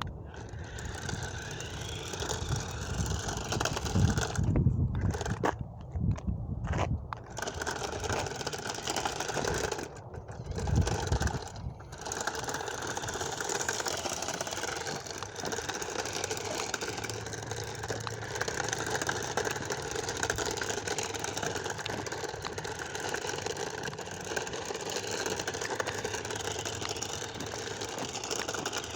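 Remote-control toy Batmobile's small electric motor whirring steadily as the car drives, with a few louder low rumbles about four to seven seconds in and again near eleven seconds.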